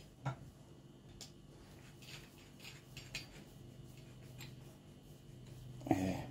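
Scattered light metal clicks and taps as a screwdriver and a steel angle-bracket face plate on a wooden jig are handled, with a soft knock about a quarter of a second in.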